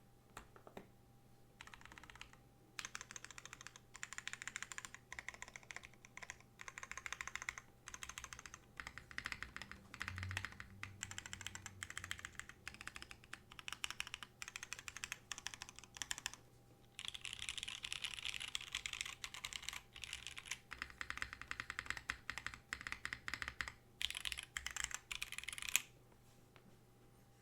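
Typing on a Bachoo Musashi TKL custom mechanical keyboard with broken-in 55 g Nixie switches, GMK keycaps, an aluminium half plate and a top mount. A dense run of keystrokes starts about two seconds in, breaks briefly past the middle, and stops about a second and a half before the end, with one louder stroke just before it stops.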